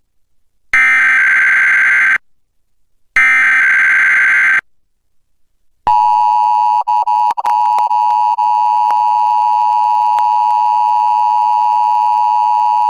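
Emergency Alert System Required Weekly Test over a broadcast feed: two bursts of SAME header data, a shrill warbling digital screech about a second and a half each, then about a second later the steady two-tone EAS attention signal. The attention tone cuts out briefly a few times just after it starts, reception hiccups from the receiving antenna.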